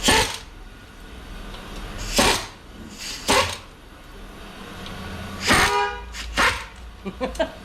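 Metal clanks and knocks from tools and transmission parts being handled during a strip-down: about six separate hits with a short ringing tone after some of them, and a quick cluster of light knocks near the end.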